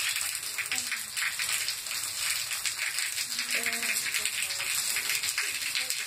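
Heavy rain falling steadily on a concrete porch, steps and flooded walkway: a dense, even pattering hiss.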